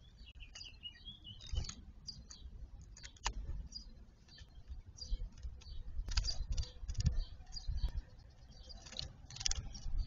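A small songbird bathing in a shallow concrete birdbath, flicking water in short splashing flurries, chiefly about six seconds in and near the end. A bird chirps a few times in the first second or two.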